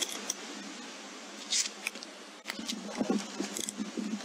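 Soft rustling and crinkling over a steady hiss, with a brief sharp crackle about a second and a half in, a few light clicks, and a cluster of rustles in the second half.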